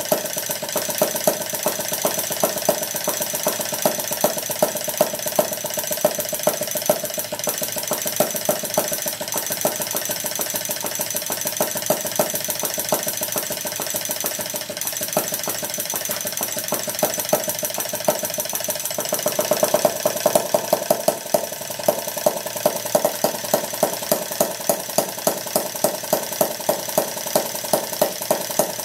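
Maier 1.5 cc vertical two-stroke model engine running on canned butane with piezo spark ignition. It makes a fast, steady mechanical clatter, with sharp firing pops standing out every half-second to a second. It is briefly louder about two-thirds of the way through.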